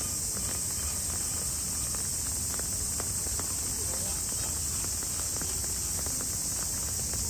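Rain ambience: scattered light drip ticks over a steady high hiss.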